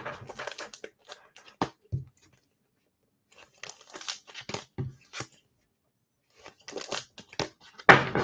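Plastic trading-card pack wrapping crinkling and tearing in irregular bursts, mixed with light clicks and knocks, with short pauses between bursts and the loudest handling near the end.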